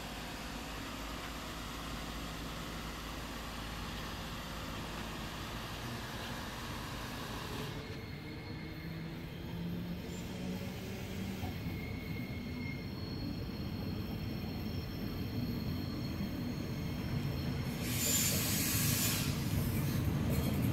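Berlin S-Bahn class 485 electric train approaching the platform, its running noise growing steadily louder as it nears. A brief burst of high-pitched noise comes about eighteen seconds in.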